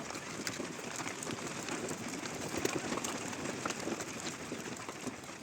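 Hailstorm: a steady hiss of falling hail with a dense, irregular clatter of hailstones striking hard surfaces.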